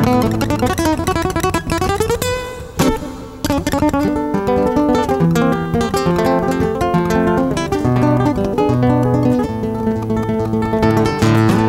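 Solo classical guitar played fingerstyle: plucked melody notes over a bass line, with a rising slide about two seconds in and a short strummed chord with a brief lull near three seconds before the picking carries on.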